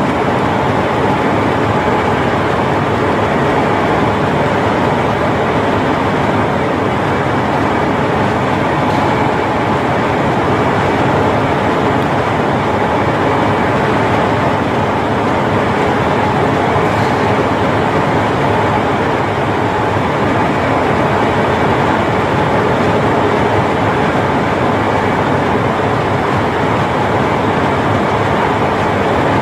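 KiHa 40 diesel railcar standing at a platform with its engine idling, a loud steady rumble that does not change.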